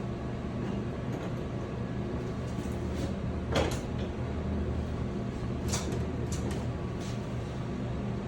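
Steady low mechanical hum with a few separate knocks and clicks, the kind made when a door or panel is handled.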